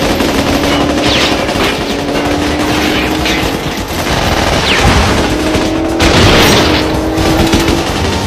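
Action-film soundtrack: sustained volleys of automatic gunfire from several submachine guns, with heavier booms, loudest about five and six seconds in.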